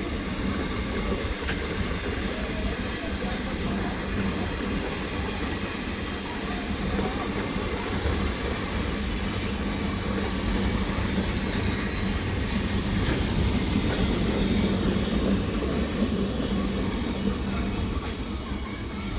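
Freight train hauled by an Indian Railways WAG 9 electric locomotive running through without stopping: a steady noise of wheels and wagons on the track, swelling slightly about two-thirds of the way in.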